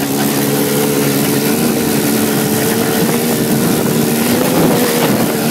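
Go-kart engine running steadily, its pitch wavering for a couple of seconds in the middle.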